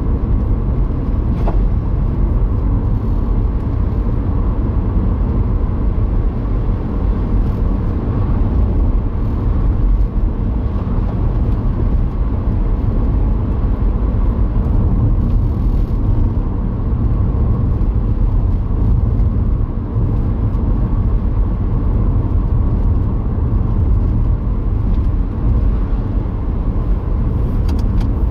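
Steady road noise inside a moving car: a low rumble of tyres and engine at cruising speed.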